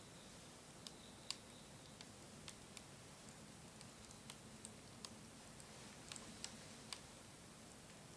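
Wood fire crackling: a dozen or so sharp, irregular pops and snaps from burning wood over a low, steady hiss.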